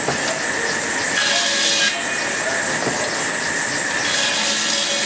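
Steam-powered portable sawmill running: a steady hissing noise with a constant high whine.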